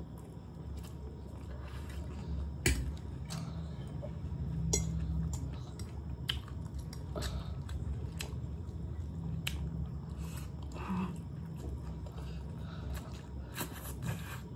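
Close-up eating sounds of chowmein noodles being chewed, with sharp clicks of metal forks against plates now and then, over a steady low hum.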